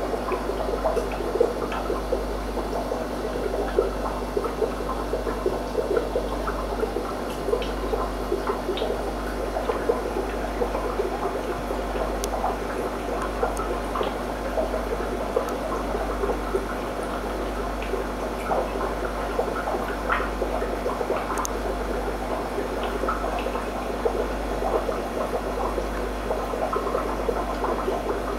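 Aquarium water bubbling and trickling steadily, with many small irregular pops, over a steady low hum.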